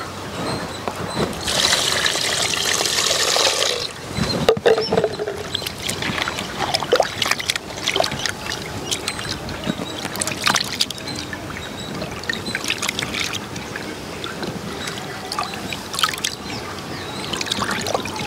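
Water poured into a clay pot of peeled prawns for about two seconds, ending with a knock. Then hands swish and rub the prawns in the water, with irregular splashing and sloshing as they are washed.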